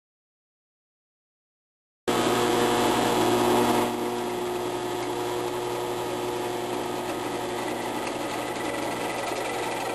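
Electric drill with a spade bit running at about 600 RPM: a steady motor sound that starts abruptly about two seconds in after silence, a little louder for its first two seconds.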